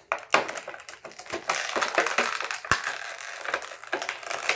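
Clear plastic accessory bag crinkling and crackling as it is handled and pulled open by hand, with a sharp click a little past the middle.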